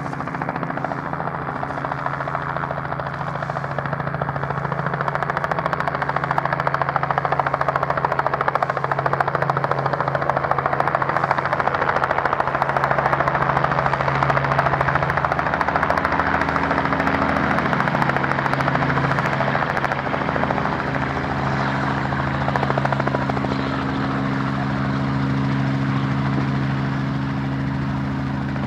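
Light helicopter approaching and landing: a steady drone of rotor and engine with a low hum beneath it. It grows loudest about halfway through as the helicopter passes close at low height, then eases off a little as it settles down to land.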